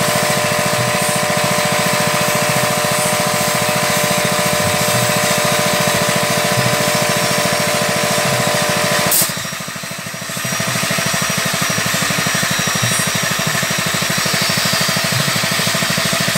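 A machine motor running steadily and loudly, with a fast even pulsing. A sharp click a little past halfway is followed by a brief drop in level before it runs on.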